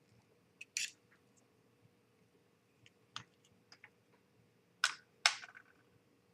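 Small model-kit parts and tools clicking and tapping as they are handled and set down on a work surface: scattered light clicks, then two louder knocks about five seconds in, the second followed by a brief rattle.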